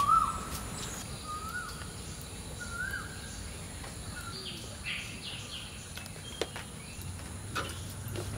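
Birds calling: a few short chirps, each rising then falling, spaced a second or two apart, the first the loudest, with quicker higher notes around five seconds in. A steady high hiss and a few light clicks sit underneath.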